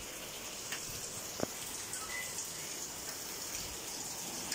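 Steady rainfall, an even high hiss, with a few sharp ticks, the loudest about a second and a half in.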